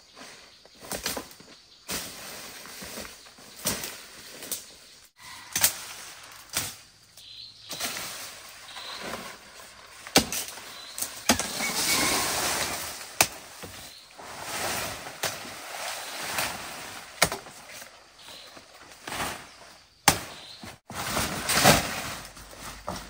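Leafy branches and undergrowth rustling as they are pulled and dragged by hand, with many sharp snaps and cracks of breaking twigs and stems, and a longer stretch of rustling about halfway through.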